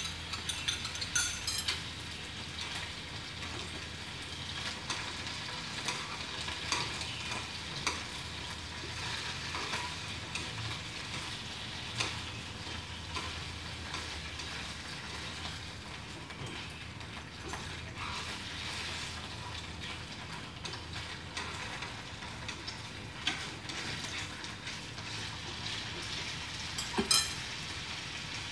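Chicken wings frying in oil in a pan: a steady sizzle. Scattered sharp clinks come from a spoon stirring in a ceramic bowl and from utensils, bunched in the first couple of seconds and again near the end.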